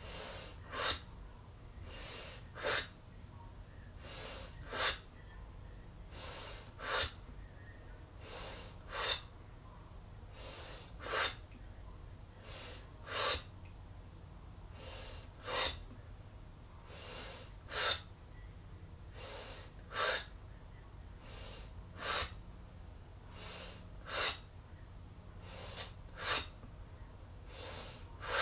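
A woman's rhythmic breathing exercise: a sharp, forceful exhale through the mouth about every two seconds as the belly is pumped in, with softer inhales through the nose between.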